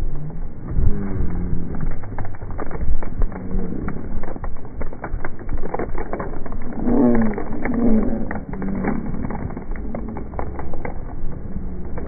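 Wind rumbling and crackling on the microphone on the open deck of a moving boat. A few drawn-out wailing calls come through about seven to eight seconds in.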